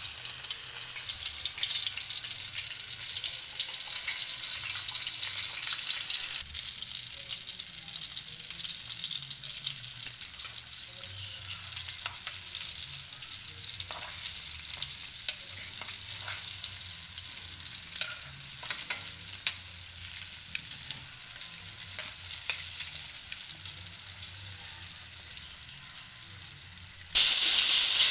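Breaded chicken pieces deep-frying in hot oil in a pan: a steady sizzling hiss with scattered sharp clicks. It drops suddenly quieter about six seconds in and jumps loud again just before the end.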